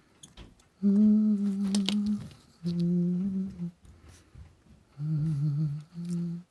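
A man humming a few long held notes in short phrases with pauses between, plus a few light clicks.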